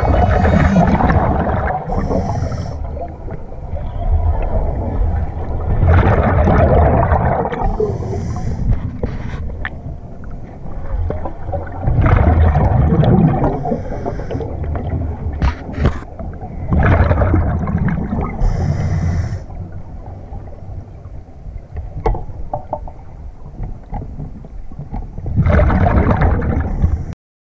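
Scuba diver breathing underwater through a regulator: a bubbly rush of exhaled air every five or six seconds, each followed by a short hiss as the diver breathes in.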